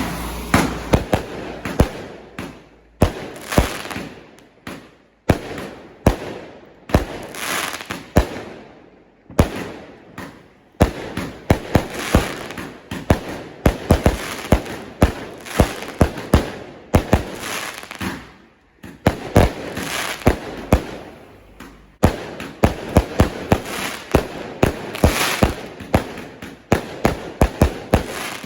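A multi-shot firework cake firing a long barrage: sharp bangs, often several in quick succession, each trailing into a hissing crackle, with only brief lulls between volleys.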